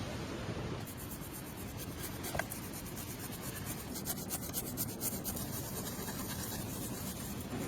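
Steady scratching and rubbing of hand work on a surface, with many fine irregular ticks.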